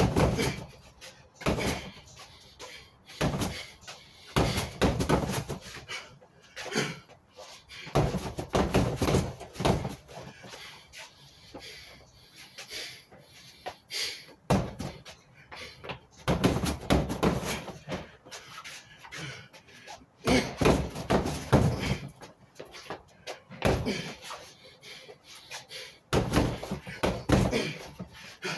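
Gloved strikes landing on an Everlast freestanding punching bag: sharp thuds and slaps in quick combinations of several hits, with short pauses between the combinations.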